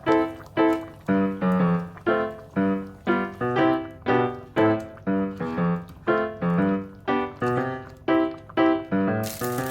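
Background music: a keyboard or piano melody of short notes, about two a second, each fading away. Near the end a steady hiss comes in under the music.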